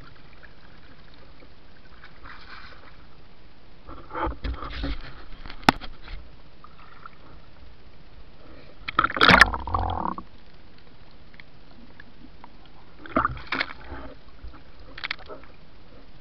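Water splashing and gurgling around a diver's camera at the sea surface, in irregular bursts over a steady hiss, with a sharp click before the middle and the loudest splashing a little after halfway.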